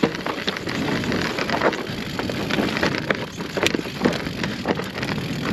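Mountain bike rolling down a loose, rocky trail: tyres crunching over volcanic stones and the bike rattling with many small knocks, one sharper knock a little past halfway.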